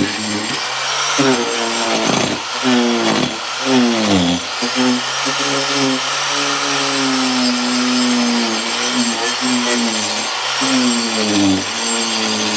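Handheld electric power tool cutting into rotted log wood, its motor running continuously. Its pitch dips several times as it bites in and then recovers.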